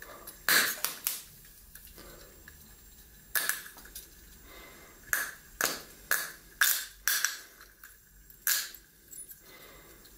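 Sharp cracks and pops, about a dozen, spaced unevenly, from a glass beaker of liquid oxygen holding a rolled aluminium sheet hung on copper wire.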